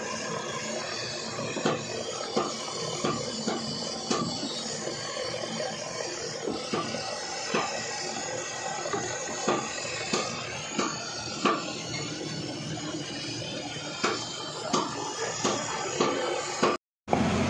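Background music with a regular beat, cutting out for a moment near the end.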